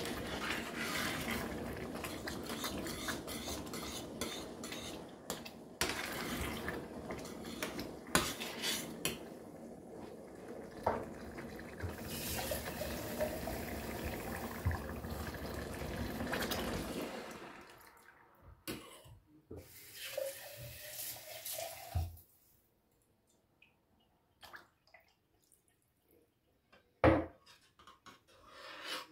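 Metal spoon scraping and clinking in a stainless steel saucepan of simmering tomato sauce, with water running and being poured in to thin the sauce. The steady noise drops away after about 17 seconds, leaving scattered clinks and one sharp knock near the end.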